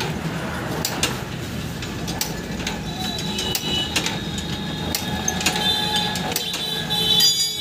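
Yamaha motorcycle engine being turned over with its spark plug out for a compression test: regular mechanical clicks about twice a second over a low hum, while the compression builds on the gauge.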